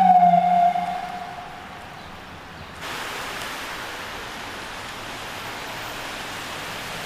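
An emergency vehicle's siren sounds one held, slightly falling tone that fades out over the first second and a half. From about three seconds in there is a steady hiss of rain on a wet street.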